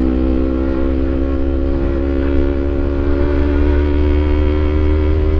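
Kawasaki Ninja 250 FI parallel-twin engine through an aftermarket CLD Monster Racing exhaust, running at a steady engine speed while the bike is ridden, with a deep low rumble under a steady tone.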